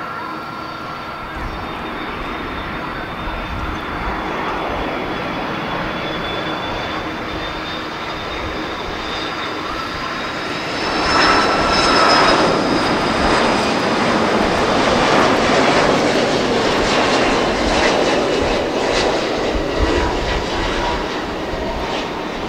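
Airbus A330-200 jet engines on final approach: a steady engine whine over a rushing noise that swells sharply about eleven seconds in as the airliner passes close, then stays loud as a broad rumble toward touchdown.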